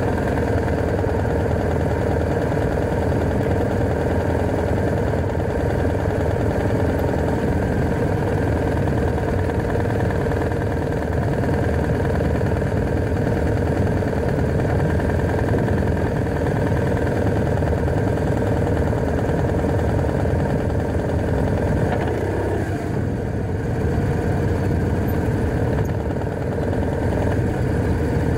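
BMW R1100RT's boxer-twin engine running steadily as the motorcycle rides along at low speed, with a short dip in the engine note about three-quarters of the way through.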